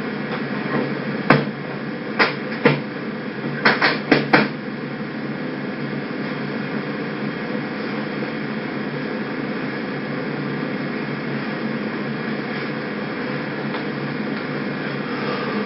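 Steady background hum and hiss with a handful of short, sharp knocks about one to four seconds in, the last few close together.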